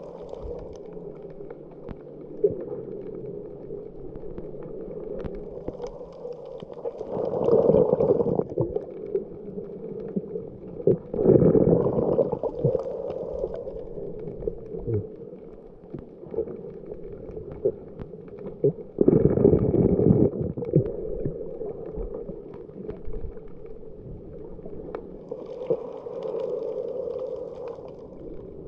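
Muffled water noise picked up by a camera underwater while snorkeling: a steady low rush, with three louder surges of about two seconds each, roughly a quarter of the way in, a few seconds later, and again past the middle.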